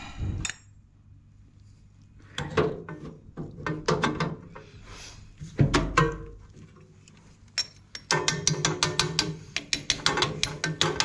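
Hand tools working a copper pipe fitting into a fan convector: scattered metal knocks and handling, then from about eight seconds in a rapid run of ratchet-like clicks as the fitting is tightened.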